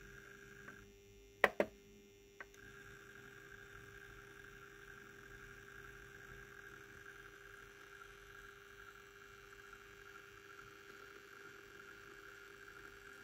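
H0 model electric locomotive under digital control running slowly, with a faint steady motor whine over a lower hum. About half a second in the whine cuts out for about two seconds, and in that gap come a few sharp clicks, the loudest pair about a second and a half in.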